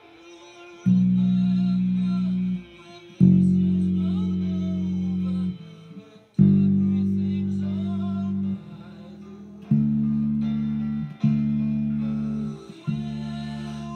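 Precision-style electric bass plucked with the fingers, playing six long held notes that each ring for one and a half to two and a half seconds and slowly fade. A quieter recording of the song with singing plays underneath.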